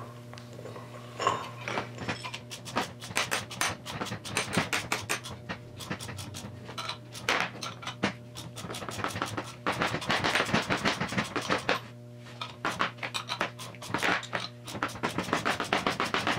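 Socket ratchet clicking in quick runs as the nuts on a bearing separator's bolts are run down, with a steady electrical hum underneath.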